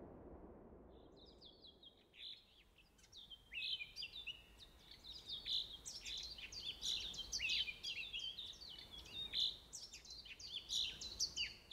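Bluebirds singing: many short, downward-sliding chirps overlapping, starting faintly about a second in and growing busier a few seconds later.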